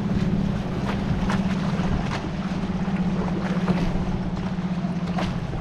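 A steady low motor hum, as from a boat engine running nearby, over water splashing and the dip of kayak paddles, with a few short splashes.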